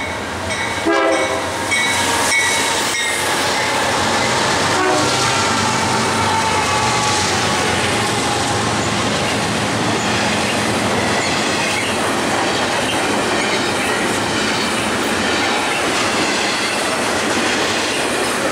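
BNSF freight locomotives pass close by with the horn sounding in the first few seconds. Then double-stack container cars roll past in a steady rumble of wheels on rail, with clickety-clack over the rail joints and thin wheel-flange squeal.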